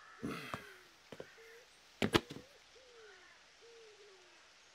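Faint, repeated short falling hoots of a bird, with a single sharp click or knock about two seconds in.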